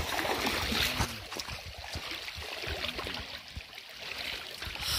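River water running, a steady rushing hiss, with a few light knocks and splashes.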